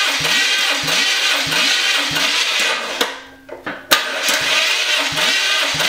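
Starter motor cranking a VQ35 V6 engine with its spark plugs out, a loud whirring with a steady beat about every two-thirds of a second, for a cold compression test. The cranking stops about three seconds in and starts again sharply about a second later.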